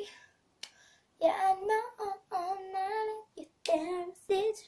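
A boy singing in several short phrases of held notes, starting about a second in.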